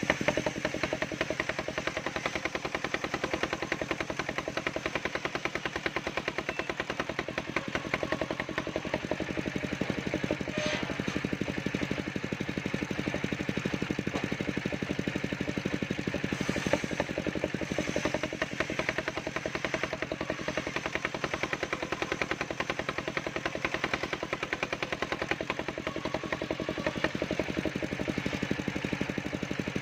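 Engine of a portable circular sawmill running steadily, with a fast, even chugging of firing pulses.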